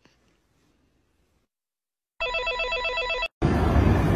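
An electronic telephone ring: a warbling trill of several steady tones chopped into rapid pulses, lasting about a second after a near-silent start. Just after it stops, a loud rushing noise starts suddenly near the end.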